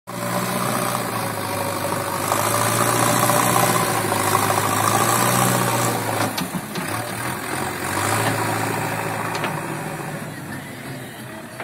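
JCB backhoe loader's diesel engine running steadily as the machine moves over the dirt, with a few short knocks about six seconds in. The engine sound fades over the last few seconds as the machine moves away.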